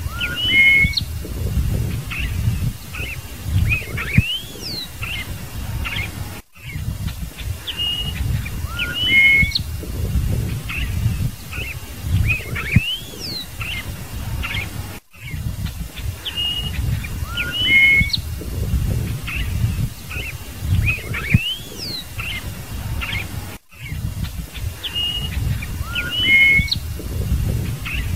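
Scarlet-headed blackbird singing: a phrase of clear whistles and rising slurred notes that repeats about every eight and a half seconds, over a steady low rumbling noise.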